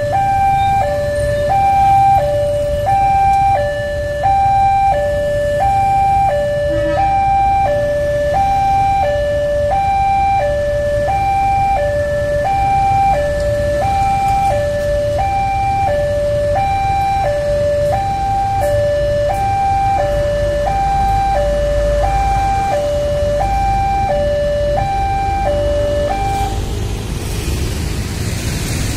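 Railway level crossing warning siren sounding a two-tone electronic alarm, a higher and a lower tone alternating evenly about once a second. It cuts off near the end, leaving a low rumble.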